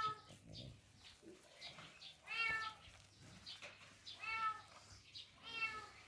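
A cat meowing four times, each meow a short call that rises and falls in pitch, coming about every one and a half to two seconds.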